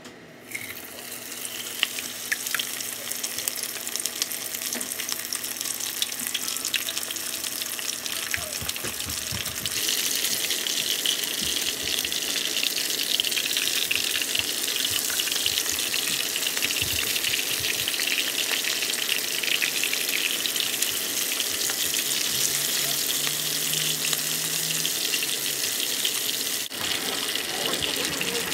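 Fish deep-frying in hot oil: a steady sizzle that gets louder about ten seconds in.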